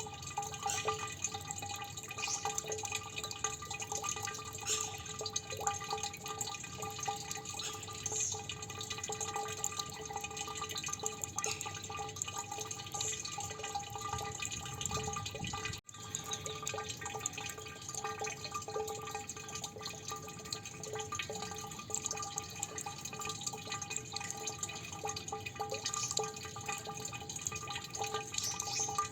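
Water dripping: many quick drops falling in an irregular patter, with a few steady ringing tones underneath. The sound cuts out for an instant about halfway through.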